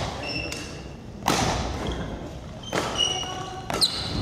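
Badminton doubles rally: racket strings strike the shuttlecock with a sharp crack every second or so, four hits in all. Between the hits, shoes squeak briefly on the wooden gym floor.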